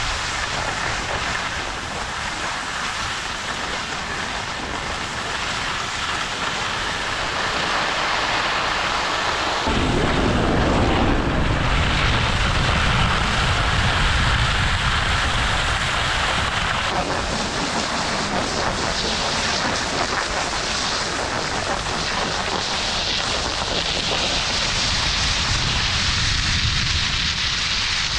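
Skis sliding on packed snow with wind rushing over the microphone as the skier moves down the slope. The low wind rumble turns abruptly heavier about ten seconds in.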